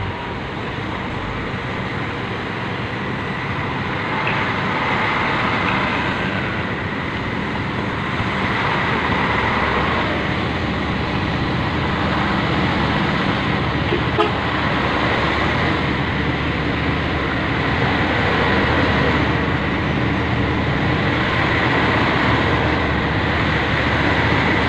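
Heavy self-loader truck running on the road: a steady mix of engine and road noise that slowly grows louder, with a single faint click about halfway through.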